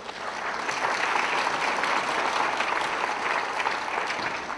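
Audience applauding: the clapping builds within the first second, holds steady, and begins to fade near the end.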